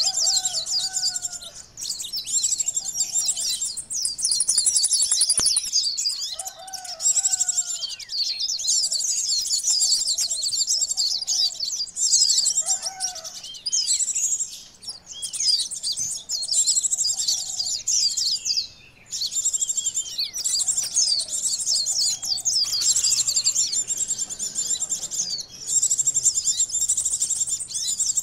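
Van Hasselt's sunbirds (kolibri ninja, "konin") calling in rapid, high-pitched chattering bursts of a second or two with short breaks, with a few lower notes beneath now and then. This is a busy, excited sunbird lure (pikat) recording, used to draw in wild sunbirds.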